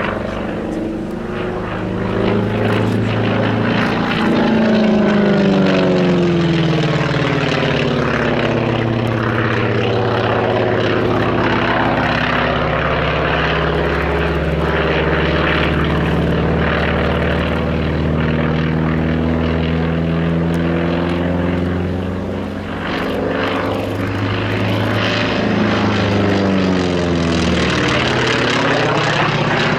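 Radial-engine propeller warbirds flying a low display, their piston engines droning steadily. The pitch falls as one passes a few seconds in and rises again near the end as one approaches.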